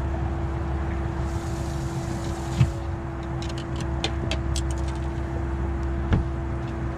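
Steady low mechanical hum with one constant tone on a bass boat. A thud comes about two and a half seconds in, then a quick run of clicks, and another thud near the end.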